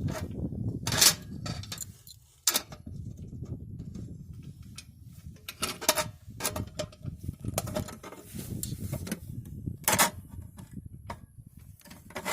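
Metal floodlight fixture being handled and closed up: a string of sharp clicks and knocks, loudest about one, six and ten seconds in, over low rumbling handling noise.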